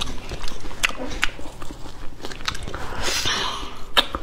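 A person eating soft, ripe durian flesh close to a lapel microphone: wet smacking and chewing clicks, with a short breathy hiss about three seconds in and a sharp click near the end.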